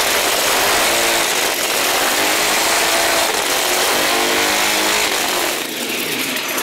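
A two-stroke engine on the 48-cylinder motorcycle running loudly and revving up and down, its pitch rising and falling repeatedly, during test runs of its auxiliary starter engine.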